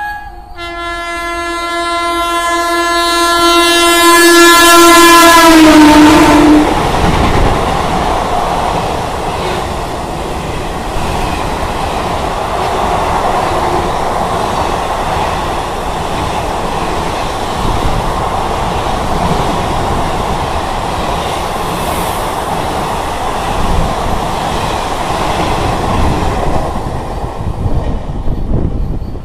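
WAP-4 electric locomotive's horn sounding long and loud as an express train approaches at about 100 km/h, dropping in pitch as the locomotive passes about six seconds in. Then the passenger coaches rush past with wheels clattering over the rails, fading out near the end.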